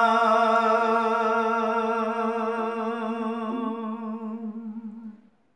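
A man's voice chanting Gojri bait verse, holding the last note of a line as one long, wavering note that slowly fades and stops about five seconds in.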